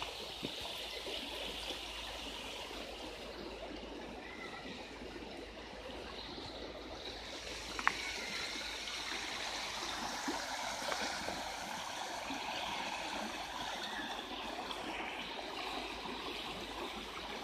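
Shallow river running over a stony, pebbly bed: a steady rush and trickle of water, with one brief click about eight seconds in.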